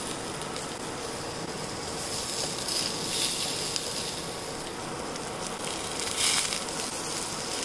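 Vegetable slices sizzling in hot olive oil in a nonstick frying pan, a steady hiss, with a few faint clicks of metal tongs against the pan.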